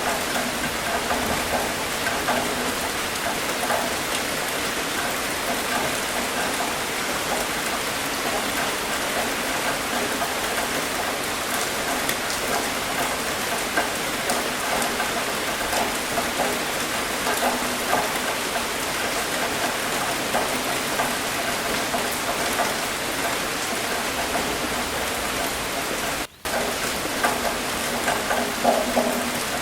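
Steady rain falling, a dense even hiss with scattered drip clicks. It cuts out for a split second about 26 seconds in, then carries on.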